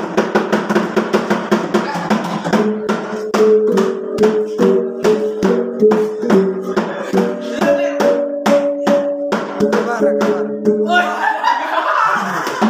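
Sumbanese gong-and-drum ensemble: several hand-held gongs struck with mallets ring out interlocking held tones over a fast, steady beat of sticks on small drums. About eleven seconds in the playing stops and the players break into shouts and laughter.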